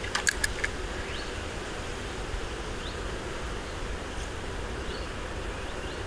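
Outdoor ambience: a quick run of four or five sharp clicks in the first second, then a few faint, short rising chirps over a steady low rumble.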